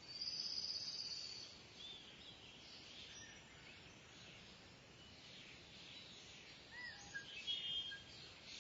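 Kingfisher calling: a loud, high, shrill trilled call for just over a second at the start, scattered faint chirps after it, and a short burst of rapid high notes near the end, over a steady outdoor background hiss.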